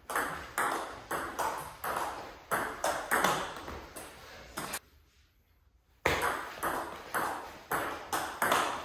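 Table-tennis rally: the celluloid-type ball clicking in quick alternation off the rackets and the table, about two to three hits a second. The clicks stop a little before five seconds in, and after about a second a new rally starts.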